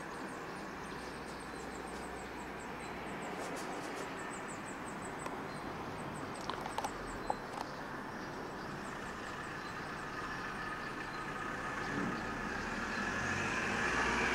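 Steady hum of road traffic that swells as a vehicle passes near the end. A few sharp clicks come in the middle, and a faint high chirp repeats several times a second.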